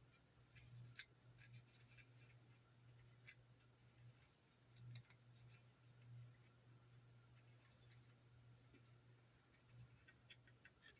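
Near silence: faint, scattered small clicks and scratches of plastic model parts being handled, over a low steady hum.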